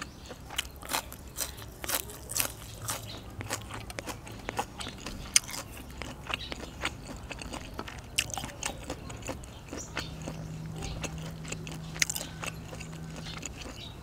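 Close-miked chewing of crisp raw vegetables, with frequent sharp crunches and wet mouth sounds that thin out over the last few seconds.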